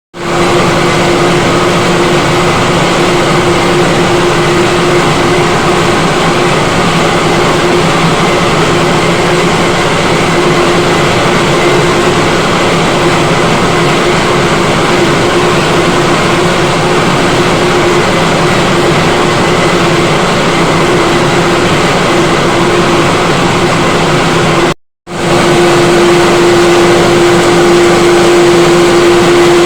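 Tripe descaling machine running steadily: a loud, even mechanical noise with a constant hum. It drops out completely for a moment about 25 seconds in, then carries on unchanged.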